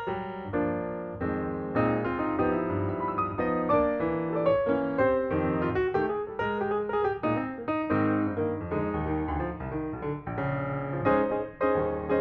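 Background piano music, with notes played in quick succession throughout.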